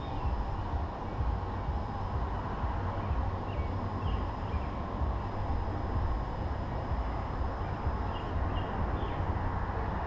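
Steady low outdoor rumble and hiss, with a few faint short bird chirps scattered through it, several close together near the end.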